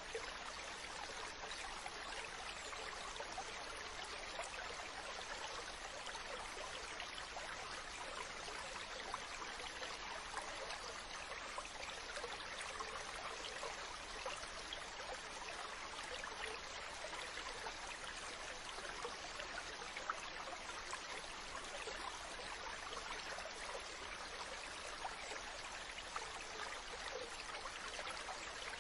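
Mountain stream: water running and splashing over rocks in a steady rush, with small brighter splashes and drips here and there.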